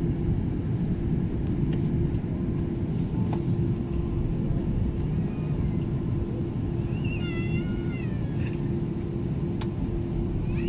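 Cabin noise inside an Airbus A380-800 moving on the ground: a steady low rumble of engines and wheels with a steady hum. From about seven seconds in, a brief high wavering whine rises and falls over it.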